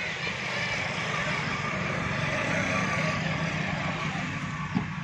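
A motor vehicle's engine running steadily, growing louder toward the middle and fading again, with a short knock near the end.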